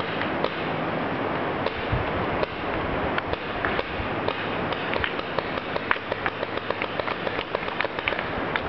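Paintballs smacking into trees and the ground around the camera: many sharp cracks and taps, coming faster in the second half, over a steady rushing hiss.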